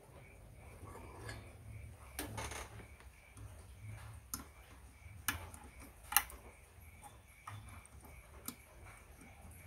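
Scattered sharp clicks and light taps of hand tools on an amplifier circuit board and its aluminium heatsink while an output transistor is being desoldered, over a low steady hum.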